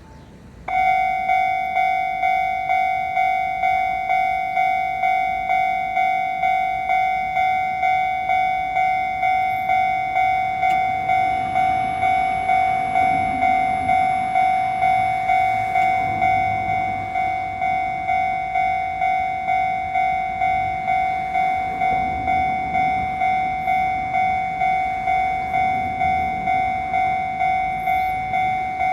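Japanese railway level-crossing alarm starts about a second in and keeps sounding: a steady repeating electronic ding, warning of an approaching train.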